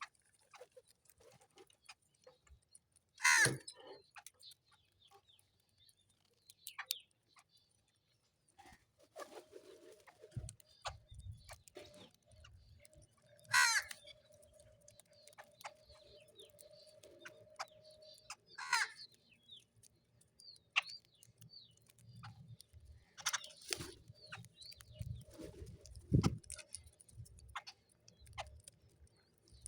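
Crows cawing, single harsh calls a few seconds apart, about four in all, with small birds chirping faintly in between.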